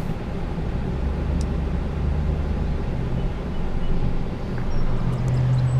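A vehicle engine running with a low, steady hum that steps up slightly in pitch about five seconds in.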